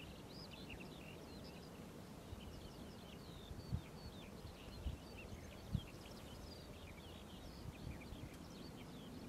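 Faint, busy twittering and chirping of many small birds singing together, with a few dull low thumps near the middle.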